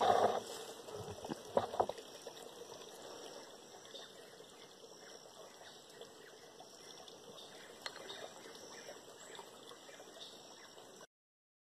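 Close rustling of a leather boot and clothing being handled, with a few sharp knocks in the first two seconds as the boot is thrown down from a tree perch. After that, faint steady forest background with a thin high-pitched hum and small scattered clicks.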